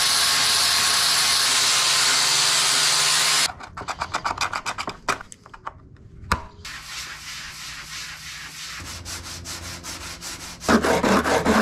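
An electric sander runs steadily on the fiberglass-and-resin repair of a car's front lip and cuts off about three and a half seconds in. Quick, even strokes of hand sanding follow, faint at first and loud again near the end.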